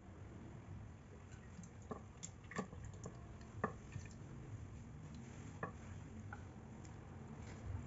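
Wet egg noodles and vegetables in sauce being pushed off a frying pan into a bowl of broth with a silicone spatula: faint wet squishes and a few light taps of the spatula on the pan, over a low steady hum.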